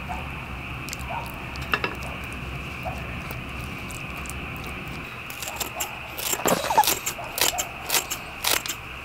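Kitchen scissors snipping through a green chili pepper: a quick, irregular run of sharp snips in the second half, over a steady low hum.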